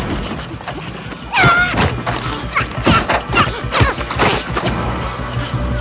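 Action-film fight-scene soundtrack: a string of punches and body impacts over a driving music score, with a strained shout about a second and a half in.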